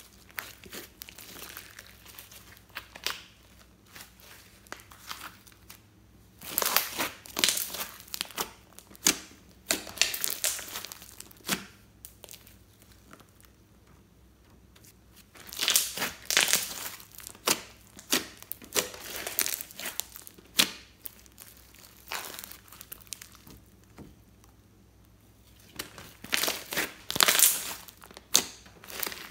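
Slime being squeezed, stretched and kneaded by hand, giving wet crackling and popping in three longer bouts with quieter handling between.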